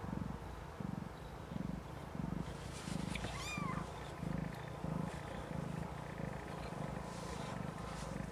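Snowshoe Siamese mother cat purring in a steady rhythm of low pulses, about one and a half a second. About three seconds in, a newborn kitten gives one short, high mew.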